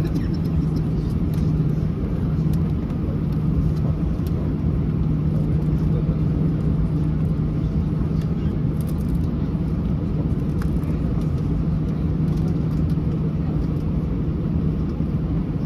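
Cabin noise of an Airbus A321-211 during departure, heard from a window seat: its CFM56 turbofan engines and airflow making a steady, dense rumble with a constant low hum.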